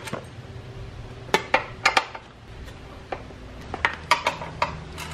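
Irregular metallic clinks and taps, about ten in all, as a T-handle wrench works on the muffler mounting bolts of a Honda CRF450L's stock exhaust.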